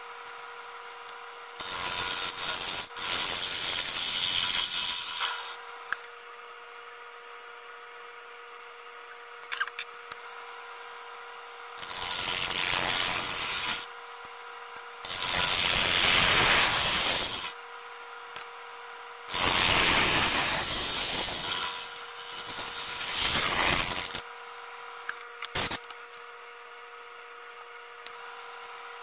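Wood lathe running with a steady motor hum, while a hand-held turning tool cuts the spinning wood blank in several passes of a few seconds each, each a loud rushing scrape of the tool shaving the wood.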